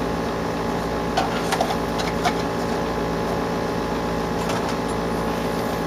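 Air conditioner running with a steady hum, with a few faint clicks and taps over it.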